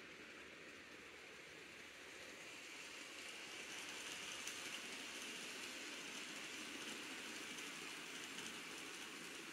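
N scale model passenger train running on Kato Unitrack: a faint, steady rushing whir of the motor and wheels on the rails, growing louder about three seconds in as the train draws near.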